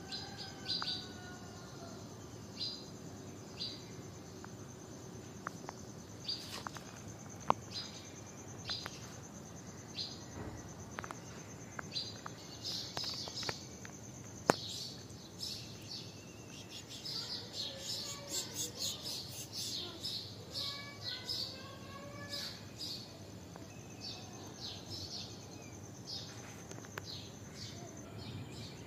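Small birds chirping, short high chirps repeated every second or two and crowding together in a busier chattering spell past the middle, over a steady high-pitched hum. Two sharp clicks stand out as the loudest sounds.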